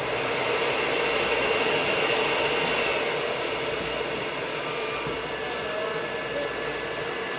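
Hair dryer blowing on a Yorkshire terrier's coat. It comes up to full blow at the start, then runs steadily with an even rush of air and a humming motor tone.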